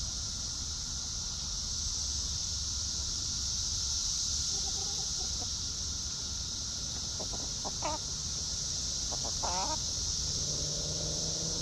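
Chickens clucking: a few short calls from about four seconds in, then a longer low call near the end. Underneath runs a steady high-pitched hiss and a low rumble.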